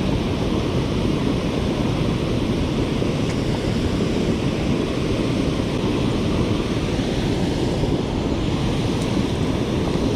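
Steady rushing of creek water, an even hiss and rumble with no breaks.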